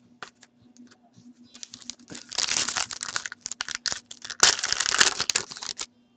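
A hockey card pack's wrapper crinkling and tearing as it is pulled open by hand, in two spells of a second or two each, with a few light clicks from the cards being handled in between.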